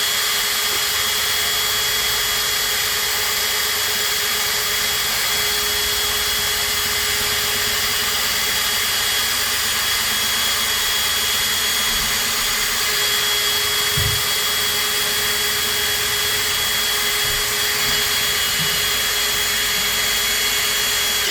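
Power drill running at a steady speed as its bit bores through thin sheet metal lubricated with oil, a constant motor whine with a steady high tone. It runs without a break and stops at the end.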